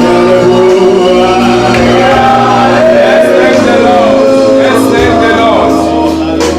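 A group of voices singing a gospel worship song over music, with held notes and steady bass tones.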